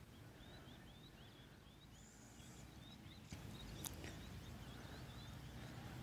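Faint outdoor ambience with a small bird giving a quick run of short, high chirps, a few a second, over a low steady rumble; a single sharp click about four seconds in.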